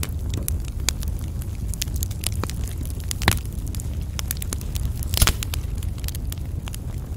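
Burning wood crackling: a steady scatter of small snaps over a low rumble, with two louder pops, one about three seconds in and one about five seconds in.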